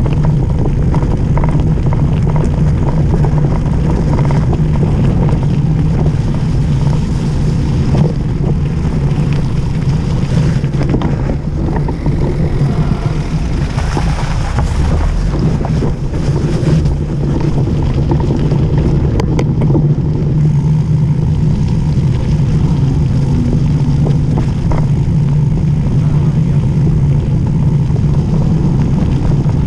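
Mountain bike rolling fast down a loose gravel and snow dirt road: tyres crunching over stones with clattering from the bike, and steady wind on the microphone. About halfway through, a car passes very close.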